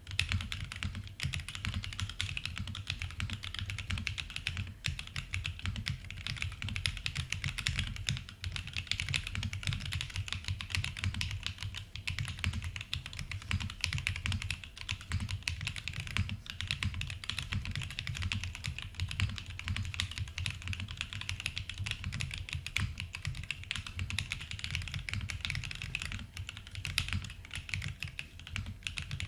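Typing on a Monokei x TGR 910 v2 mechanical keyboard with lubed and filmed Banana Split linear switches in a polycarbonate plate with TX stabilizers: a dense, continuous run of keystrokes clacking with no breaks.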